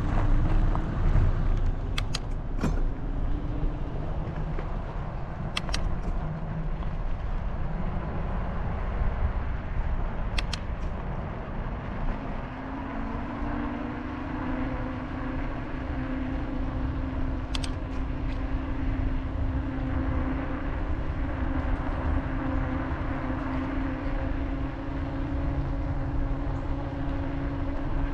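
Riding noise picked up by a camera on a moving bicycle: a steady rumble of wind and road noise with a few sharp clicks. A steady low hum sets in about halfway through.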